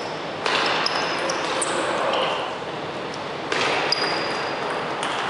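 Table tennis rally: the ball clicking off the rackets and the table over the steady noise of a sports hall, with a few short, high squeaks.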